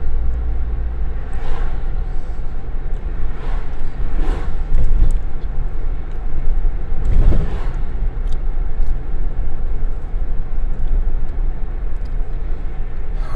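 Steady low road and engine rumble inside a moving car's cabin, with a few brief swells, the strongest about seven seconds in.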